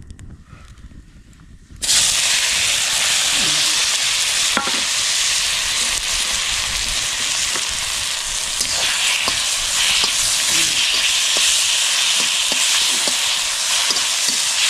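Chopped onion and tomato sizzling in a wok over a wood fire. The steady, loud sizzle starts suddenly about two seconds in, after a quieter moment of the fire alone, and a few light clicks run through it.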